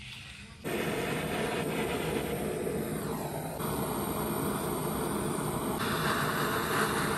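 Handheld butane gas torch burning with a steady rushing hiss that starts suddenly about a second in, heating a copper pipe joint for tin soldering.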